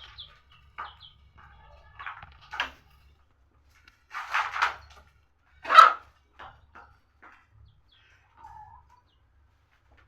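Chickens calling in short, scattered clucks and squawks, with a louder burst around four to five seconds in and the loudest squawk near six seconds.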